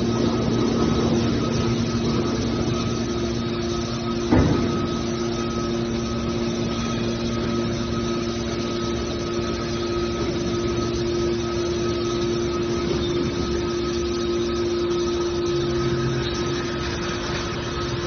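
Hydraulic power unit of a scrap metal baler running with a steady hum while its hydraulic cylinders move the baler's lid. A single sharp knock sounds about four seconds in.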